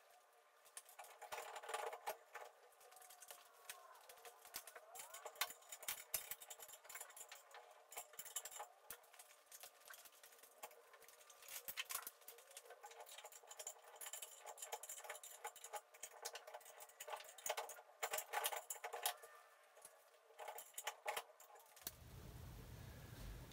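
Faint, scattered clicks, clinks and rattles of small metal hardware being handled, with a few louder clatters now and then. Near the end a low steady hum comes in.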